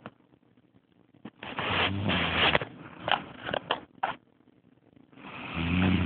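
A person snoring in deep sleep. One breath about a second long with a low buzzing pitch, a few short clicks after it, and the next snoring breath starting near the end, about four seconds later.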